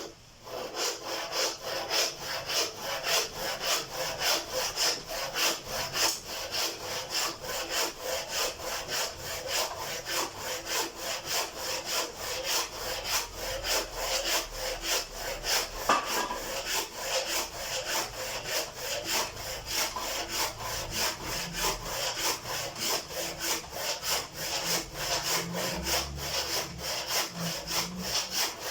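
Hand saw cutting through a wooden stick with steady, quick back-and-forth strokes, starting about half a second in.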